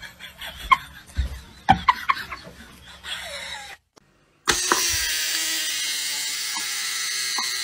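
A few short sharp noises, then, after a brief break, a steady loud buzzing whir from a small battery-powered toy motor.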